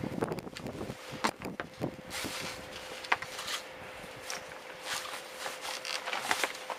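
Scattered clicks, taps and rustling from hands working a new pull cord into a small engine's recoil starter, with one sharper click about three seconds in.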